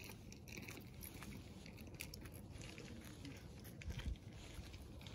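Faint small clicks and rustles of hands handling an LED headlight bulb and its small glass lens cover, with a low bump about four seconds in.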